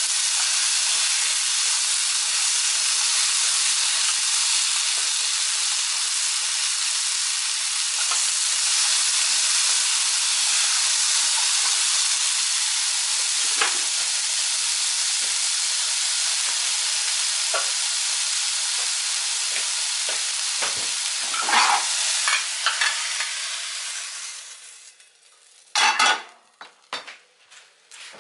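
Cubed zucchini sizzling in hot oil in a frying pan, stirred with chopsticks. The sizzle stops about 24 seconds in, followed by a few sharp knocks.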